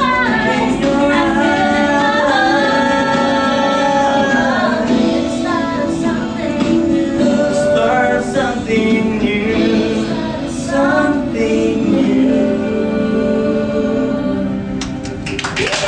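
A song with a sung melody, mostly a female voice, over instrumental accompaniment. It breaks off just before the end.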